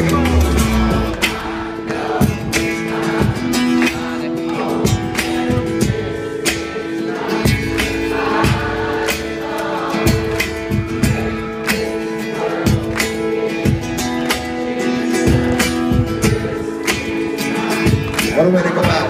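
Live rock band playing an instrumental passage: electric and acoustic guitars over a steady drum beat, with sustained chords.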